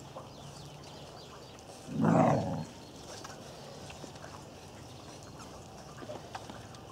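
Irish Terrier giving one short, gruff growl about two seconds in during rough play with its puppies.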